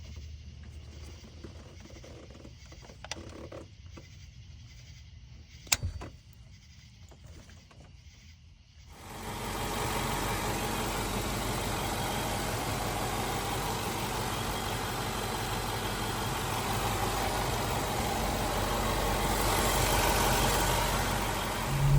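A quiet stretch with two sharp clicks, then about nine seconds in the Range Rover's 5.0 naturally aspirated V8 comes up to a steady idle and runs on evenly, swelling slightly near the end.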